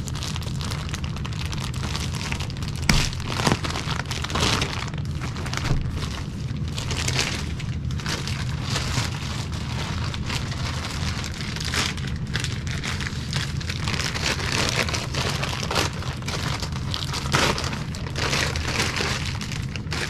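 Thick plastic vacuum-seal packaging crinkling and rustling in irregular spells as it is handled and pulled at to tear it open, with a sharp crack about three seconds in. A steady low hum runs underneath.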